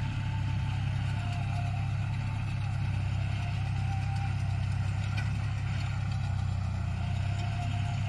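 John Deere tractor's diesel engine running steadily, a low, even hum, while it pulls and drives a Bharat straw baler.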